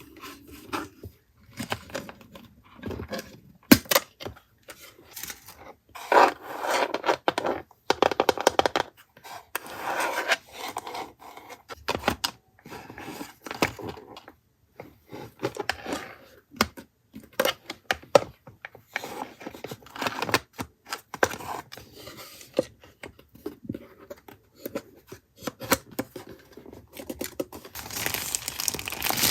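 Paper being handled by hand: tearing, crinkling and scraping in irregular short bursts, with occasional sharp taps.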